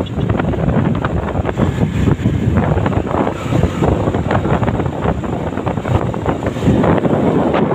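Heavy wind buffeting on the microphone of a moving vehicle, mixed with engine and road noise.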